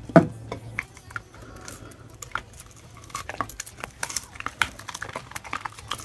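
A dog biting and crunching kernels off a piece of cooked corn on the cob: a rapid run of crisp crunches and clicks that gets busier from about two seconds in. Right at the start there is a single loud knock, the loudest sound.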